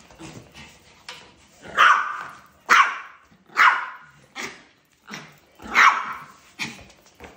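A small dog barking: a run of about seven sharp, high-pitched barks at uneven intervals, starting about two seconds in.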